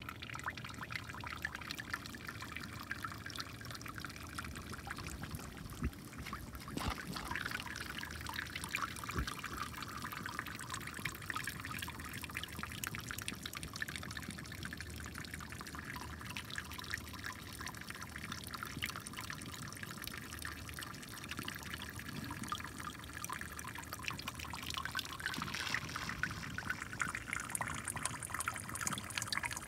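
Water trickling and splashing down into a storm drain beneath a metal grate, a steady run of small splashes, a little louder near the end.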